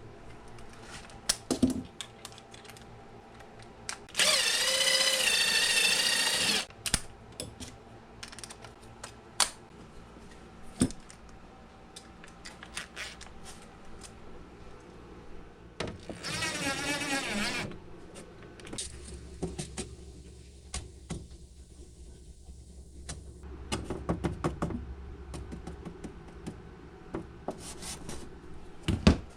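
Power drill running in two bursts, the first about two and a half seconds, the second about a second and a half, its pitch wavering as it works. In between come scattered clicks and knocks of tools and parts being handled.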